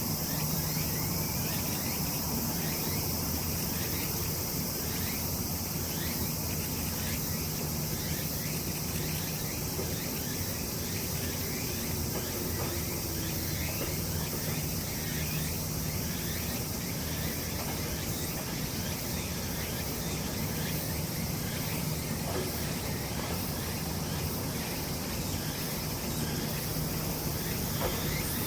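Insects buzzing steadily and high-pitched over a low, steady hum, with faint short chirps here and there.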